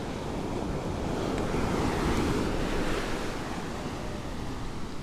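Surf breaking and washing up a sandy beach, swelling to its loudest about two seconds in and then easing off, with wind rumbling on the microphone.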